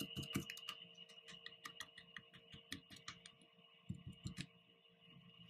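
Faint, rapid small clicks and ticks as a cut reagent packet is tipped and tapped at the small hole of a Sandy Brae water-test vessel, pouring calcium hydride granules in. The clicks thin out after the first half-second and come back in a short cluster near the end, over a faint steady high tone.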